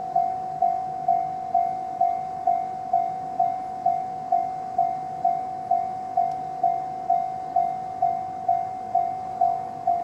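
Japanese level-crossing alarm of the JR East Tohoku type, an electronic bell sounding while the crossing is closed: a single-pitched ding repeating about twice a second, each strike sharp and then fading.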